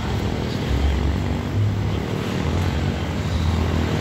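Motorcycle engines running inside a steel-mesh globe of death, a steady drone that shifts up and down in pitch as the riders circle.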